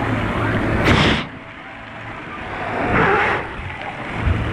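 Pool water sloshing and splashing right at a camera held at the water's surface, with two louder splashes, about a second in and about three seconds in. Between them the sound drops to a quieter, muffled wash.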